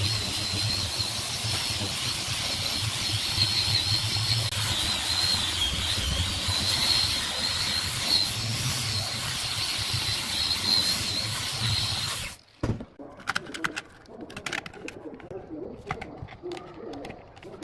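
Angle grinder fitted with a sanding disc, running steadily with a high whine as it sands a wooden clock face. It cuts off suddenly about twelve seconds in, leaving a few scattered clicks.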